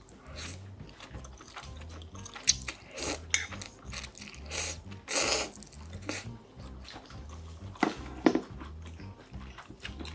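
Close-miked eating of ramen noodles: several short slurps, the strongest about five seconds in, with wet chewing and mouth clicks between them. Soft background music with a steady low beat runs underneath.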